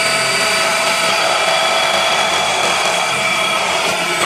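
Bosch GBH 187-LI cordless rotary hammer boring a 25 mm spade bit into a meranti hardwood beam under full pressure. The motor runs at a steady high speed with a constant whine, then stops suddenly at the end.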